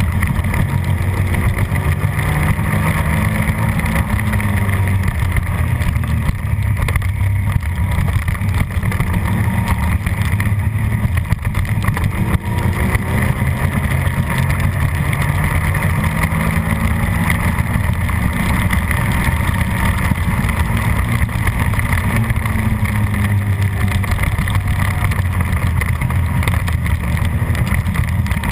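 Suzuki SV650 V-twin race engine running hard at race pace, its pitch rising and falling with the throttle and gear changes through the corners.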